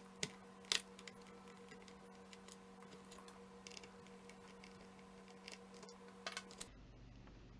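Faint, irregular small clicks and ticks of a screwdriver and fingers working the small screws of a laptop hard drive, louder in the first second and again near the end, over a steady low hum.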